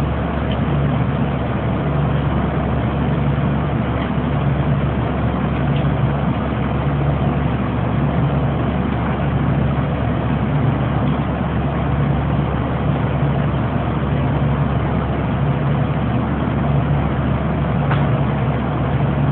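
Steady mechanical drone of processing-plant machinery, such as cooler fans or refrigeration, with a low hum that swells and fades in a slow, even beat. A few faint clicks sound over it.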